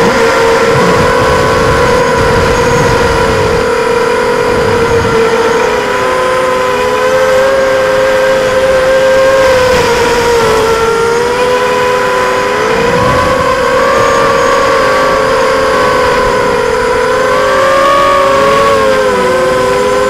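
Brushless motors and propellers of an ImmersionRC Vortex racing quadcopter buzzing in flight, heard through its onboard camera; several close tones waver up and down in pitch as the throttle changes.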